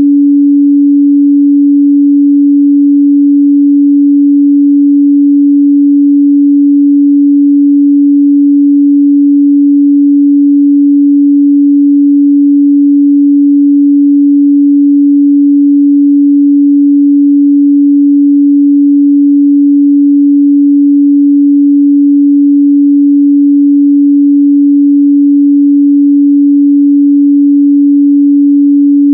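Steady 285 Hz sine-wave test tone, a single loud unchanging pitch with nothing else.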